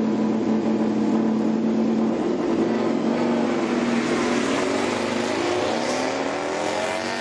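MotoGP racing motorcycle engine running at high revs. The note holds steady, drops about two seconds in as the revs fall, then climbs again through the last couple of seconds as the bike accelerates.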